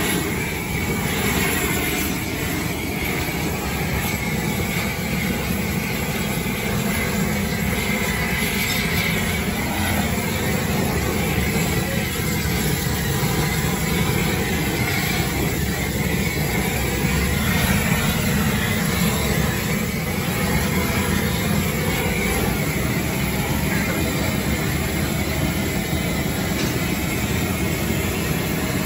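Handheld gas torch burning over a grill of meat, a loud, steady rushing flame noise that never breaks.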